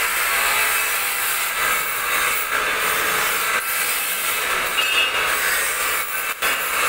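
Workshop metalworking machinery running with a steady high-pitched hiss, briefly dipping near the end.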